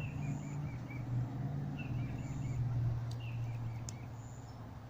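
A small bird chirping in short runs of quick high notes, four times, over a steady low hum.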